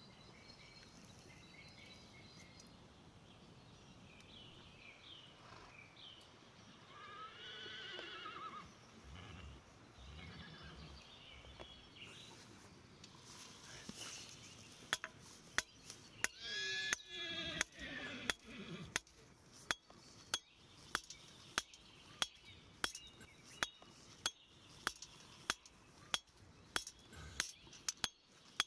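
Iron rod being hammered on an axe head used as an anvil: sharp metal-on-metal blows at about two a second, starting about halfway through. Twice, an animal's long call rises and falls in the background, once near a third of the way in and again just after the hammering starts.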